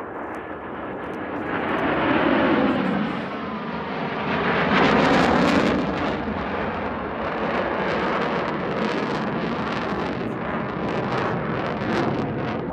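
Military display aircraft flying past at low altitude, engine noise rising and falling in pitch as it passes, loudest about two seconds and again about five seconds in.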